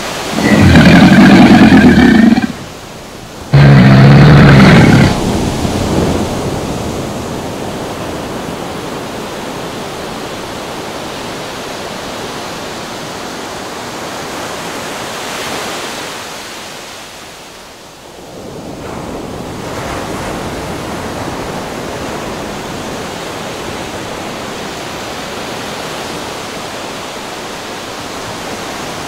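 Ocean surf washing steadily. It is preceded in the first five seconds by two very loud pitched blasts.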